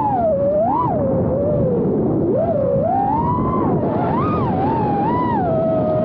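FPV quadcopter's motors and propellers whining, the pitch swooping up and down quickly as the throttle changes, over a steady rush of air.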